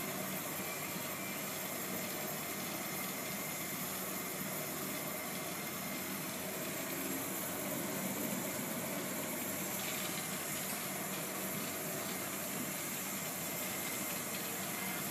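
Glassblowing torch flame burning with a steady rushing hiss.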